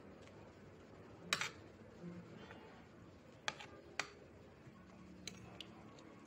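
A metal spoon clinking against a ceramic plate during a meal: a few sharp, light taps, the loudest about a second in and two more close together near the middle, over a quiet background.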